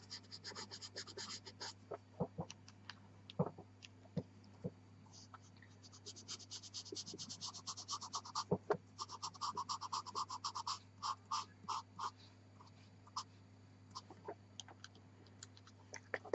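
Pastel pencil scratching on black velour pastel paper in quick back-and-forth shading strokes. There is a short run at the start and a longer run from about six to twelve seconds in, with scattered single ticks of the pencil between, over a faint steady low hum.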